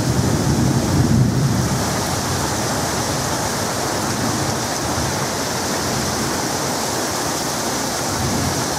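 Heavy rain pouring down in a steady hiss. A low rumble of thunder dies away in the first two seconds.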